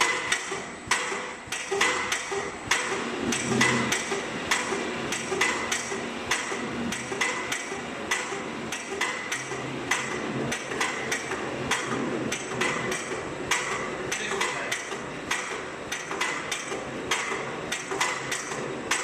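Paoloni cross cutter machine cutting a random band-sawn texture into a wooden flooring board: a rapid, irregular run of sharp knocks, several a second, over the machine's steady running hum.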